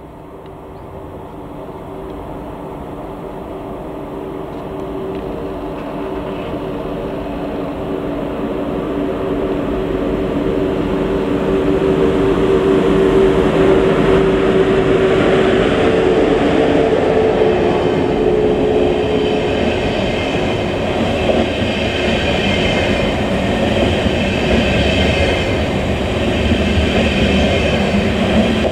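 Train approaching and running past on the tracks, growing steadily louder over the first dozen seconds, then a sustained rumble and rattle of wheels and cars. A low hum from the train fades out about two thirds of the way through, and a pulsing rattle takes over near the end.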